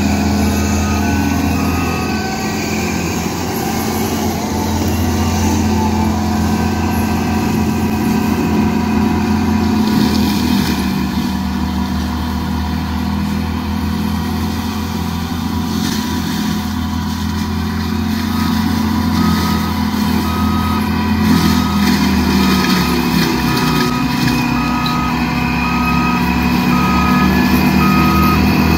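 Cat 299D3 XE compact track loader's diesel engine running steadily under load while its mulcher head chews through grass and brush. A reversing alarm beeps regularly, about one and a half beeps a second, at the start and again from about two-thirds of the way through.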